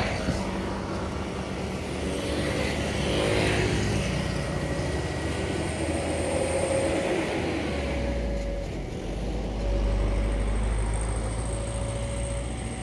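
Road traffic going past, motorcycles and cars, with one engine passing a few seconds in and a deeper rumble building from about eight seconds in. A short beep repeats every couple of seconds.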